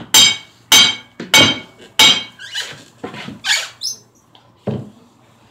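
Hammering: four sharp, ringing blows about every 0.6 s in the first two seconds, then a few softer knocks, and one more blow near the end.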